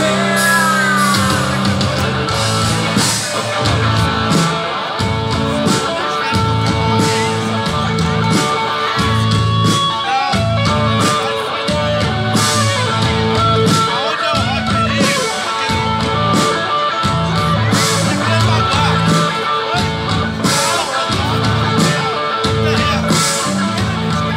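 Rock band playing live through a PA: electric guitar, bass and drums keeping a steady beat, with a singer.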